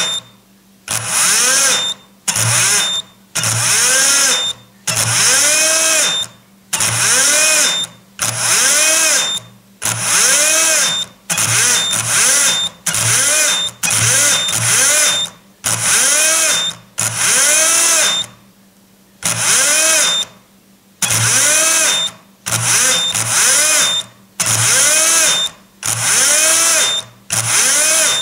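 Shimano Dendoumaru Beast Master 9000 ZB electric fishing reel's motor winding in about sixteen short bursts, each whine rising then falling in pitch as the technique lever is pushed and let go, teaching the reel a jigging motion. Short high beeps come from the reel now and then.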